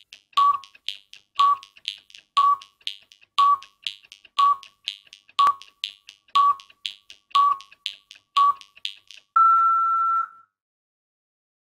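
Film-leader countdown sound effect: a short beep with a click once a second, ending about nine seconds in with one longer, slightly higher beep held for about a second.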